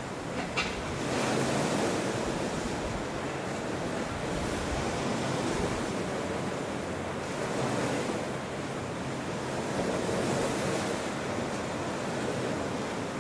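Ocean waves washing, a steady noisy hiss that swells and eases slowly, with wind on the microphone.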